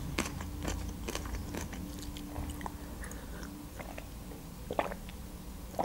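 Close-miked quiet mouth sounds of a woman drinking juice from a glass: sips and swallows with small wet clicks, one sharper click about five seconds in.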